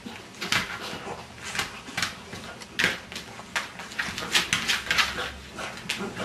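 A wet cocker spaniel being rubbed dry with a towel: an irregular run of short rustles and scuffs.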